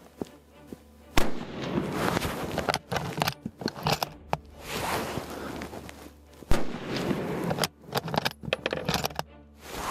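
Two rifle shots from a scoped 7x64 rifle, fired about five seconds apart, each a single sudden report, with irregular noise in between.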